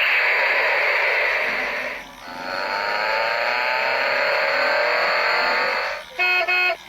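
A loud, steady noisy rush with a short break about two seconds in, its second part carrying faint gliding tones; near the end an electronic melody of short beeping notes starts.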